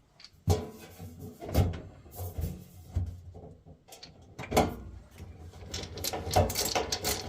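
Sharp knocks and clunks of a boiler's metal casing parts and screws being handled and fitted, then a fast run of ticks near the end.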